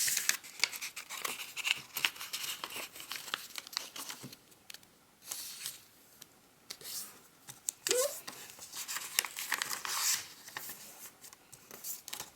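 Origami paper being folded and creased by hand: irregular crinkling and rustling, with short scrapes as folds are pressed flat, and a quieter pause about halfway through.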